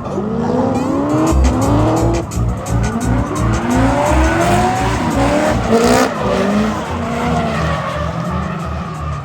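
Car at speed on a race track, engine running hard with tires squealing; short rising whines come one after another.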